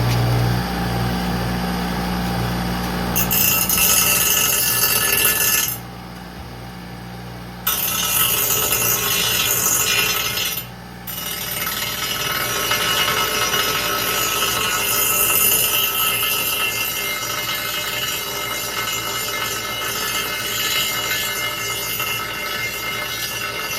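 Stick (arc) welding rod burning on steel tube: a steady crackling hiss that breaks off twice, briefly, as the arc is stopped and restarted. It opens with a low steady hum for about the first three seconds.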